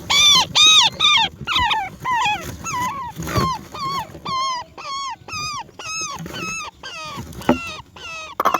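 Roller nestling begging, a rapid series of short, arched, whining calls, about two to three a second, loudest in the first couple of seconds.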